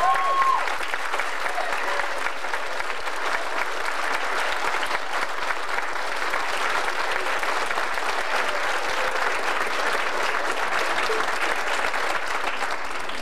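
Audience applauding steadily, a dense patter of many hands that eases off near the end, with a brief high pitched cry at the very start.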